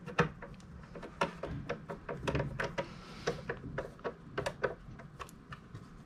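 Screwdriver turning plastic screws into the plastic case of a Synology DS220J NAS: a run of small irregular clicks and light scrapes.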